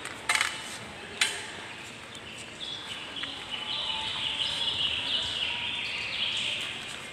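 Birds chirping in a dense, continuous chatter. Two sharp knocks cut through, a third of a second and just over a second in.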